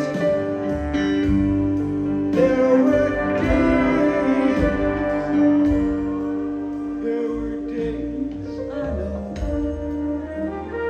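A live band playing a slow instrumental passage, with long held notes and a few sliding ones over a steady bass.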